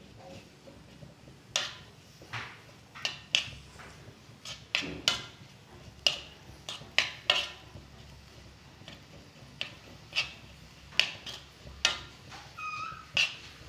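Spoon clattering and scraping against a cooking pan in irregular strokes, about one a second, while crushed ginger and jaggery are stirred over the heat.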